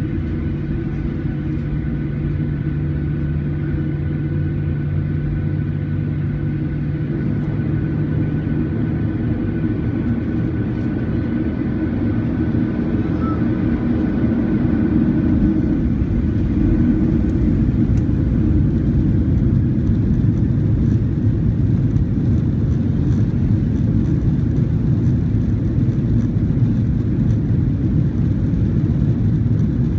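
Boeing 737-800's CFM56 jet engines heard from inside the cabin while the airliner taxis: a steady low rumble that grows a little louder about halfway through.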